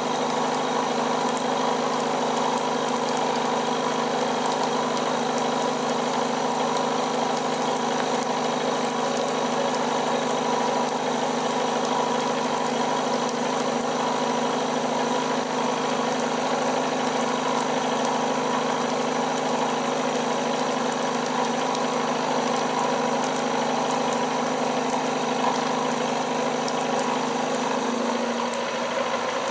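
A 60 mm neutral-rake face mill on a light-duty milling machine taking a 2.5 mm deep facing cut across a steel block at 800 rpm: a steady machine hum with the cutter's cutting noise. About a second and a half before the end the deeper tones change.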